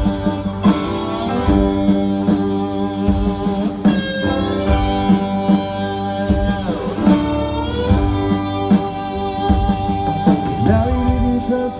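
Live band playing an instrumental break in a country-rock song: guitar lines, some bending in pitch, over a steady beat.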